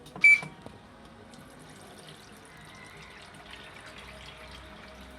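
A sharp click with a short beep from the washing machine about a quarter second in. Then a steady faint trickle of water running out as the machine drains with its drain motor switched on.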